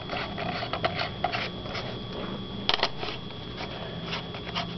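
Compact fluorescent bulbs being screwed into plastic socket splitters: glass and plastic scraping and rubbing with small irregular clicks, and a sharper double click a little under three seconds in.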